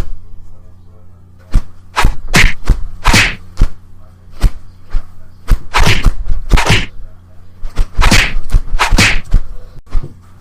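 Stock hit sound effects: sharp whacks and thwacks mixed with short swishes, coming in irregular quick succession over a low steady hum.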